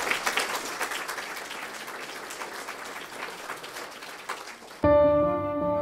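Audience applauding, a dense patter of many hands that slowly fades. Near the end, music with long held string notes starts suddenly and louder.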